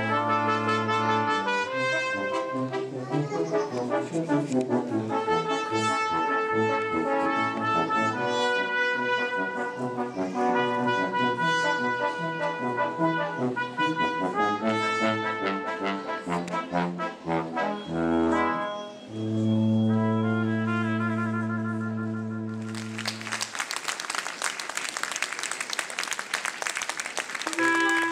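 Brass ensemble of trumpets, trombones and French horn playing a lively piece, closing on a long sustained chord. Applause follows for the last few seconds.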